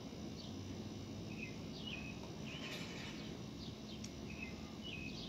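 Faint, scattered chirps of small birds, short notes that glide slightly in pitch, over a steady low background hum.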